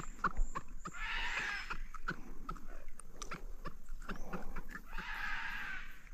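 Hooked mandi catfish croaking out of the water as it is held for unhooking: a run of short grunting pulses, with two longer rasping bursts about a second in and about five seconds in.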